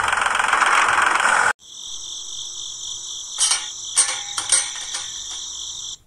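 A small electric motor of a homemade toy tractor runs with a loud buzzing whir and cuts off abruptly about a second and a half in. Then a steady high-pitched tone follows, with a few clicks and taps as the plastic tanker is handled.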